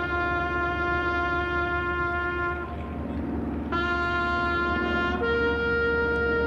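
A brass horn holds long, steady notes: a low note that breaks off about two and a half seconds in, comes back about a second later, then steps up to a higher held note about five seconds in.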